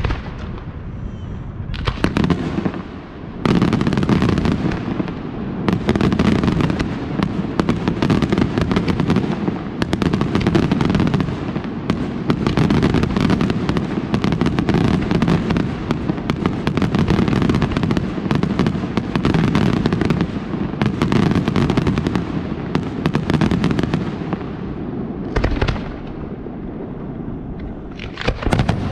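Aerial fireworks display: after a quieter start, a dense, unbroken barrage of rapid bangs and crackling begins about two seconds in and runs for over twenty seconds. Near the end it thins out to a couple of single shell bursts.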